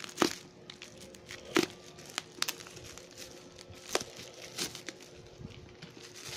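Bubble wrap crinkling as a utility knife cuts and tears it open, with about half a dozen sharp plastic cracks and snaps.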